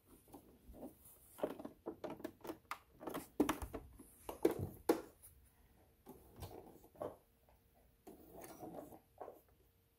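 Handling sounds at a sewing machine: irregular clicks, taps and fabric rustling, loudest in the middle.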